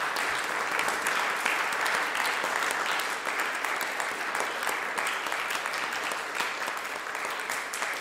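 Theatre audience applauding steadily at a curtain call, many hands clapping together.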